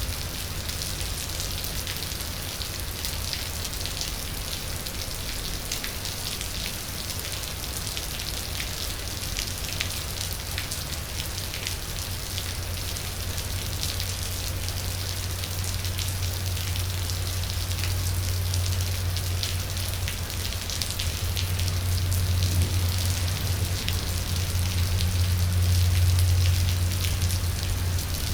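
Steady rain falling, with many small separate drop ticks over an even hiss. A low steady hum underneath swells louder over the second half.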